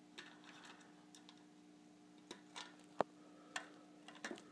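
Small clicks and taps of a power plug and its cable being handled and connected to an Arduino board, with one sharper click about three seconds in, over a faint steady hum.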